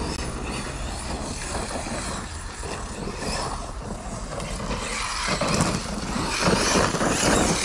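Radio-controlled car driving on a dirt track, with the noise of its motor and tyres getting louder over the last couple of seconds.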